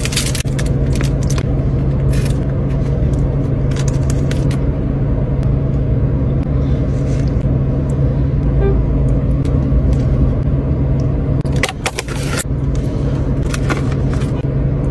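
Steady low hum of a car idling, heard from inside the cabin. Foil wrapper crinkles now and then, with a longer burst of crinkling about twelve seconds in.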